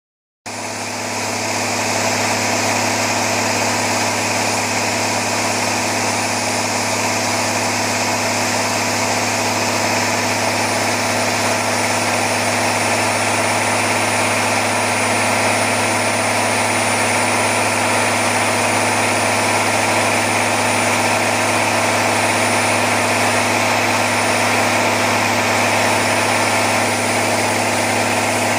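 Niigata (IHI) 13.3-litre turbocharged, intercooled six-cylinder railcar diesel engine running steadily on a test bench. The high-pitched whine of its turbocharger is mixed in. The sound comes in just after the start.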